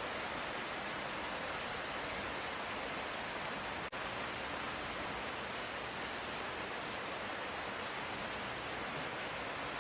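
Steady light rain, an even hiss with no thunder, broken by a very brief dip in level about four seconds in.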